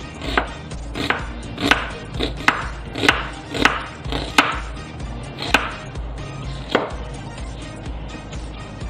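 Kitchen knife chopping an onion on a cutting board: about ten sharp knocks of the blade against the board, roughly one every half second or so, spacing out after about four and a half seconds and stopping before the end.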